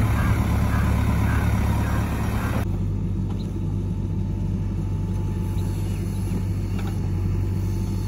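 Diesel engine of a JCB 3DX backhoe loader running steadily as the machine drives. After a cut about two and a half seconds in, the backhoe's and a tractor's engines keep running at a lower, even level while the backhoe loads soil into the tractor's trolley.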